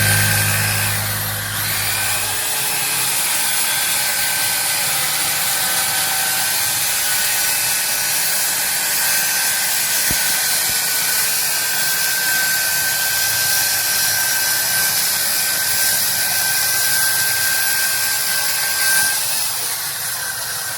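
Circular saw running steadily as it cuts through a plywood sheet, with a steady high whine.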